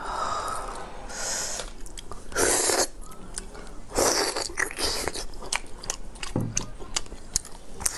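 Close-miked eating: the shell of a boiled maodan (partly developed egg) crackling as it is peeled, then biting into the egg and chewing, with many small mouth clicks. There are louder bursts about two and a half seconds in and again about four seconds in.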